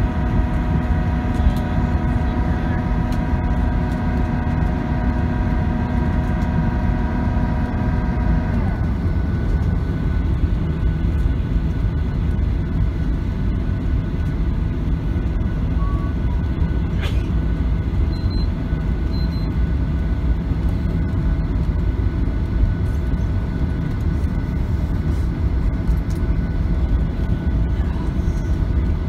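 Boeing 737-800's CFM56 jet engines at taxi power, heard inside the cabin as a steady low rumble. Over it a whine of several steady tones stops abruptly about eight and a half seconds in.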